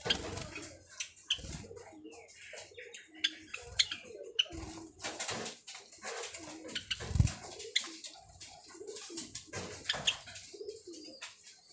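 Java sparrows calling: short high chirps over lower warbling notes, with a few soft thumps and wing flutters as the birds hop about the cage.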